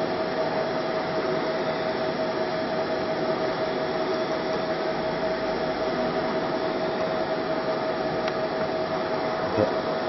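Steady fan noise: an even hiss with a constant mid-pitched whine, and a soft knock near the end.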